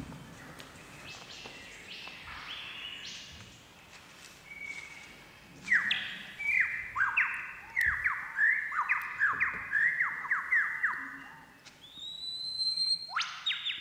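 Lyrebird song played from a nature documentary over a hall's speakers. Scattered calls come first. From about halfway there is a fast run of loud whistled notes, each sweeping downward, and near the end a rising whistle into a held high note.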